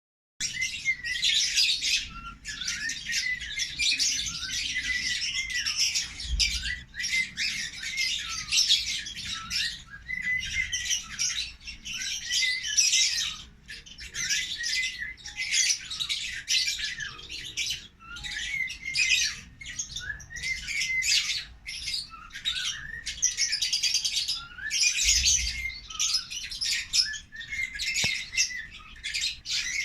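Lovebirds chattering in a near-continuous stream of high-pitched chirps, in bursts of a few seconds with brief pauses between them.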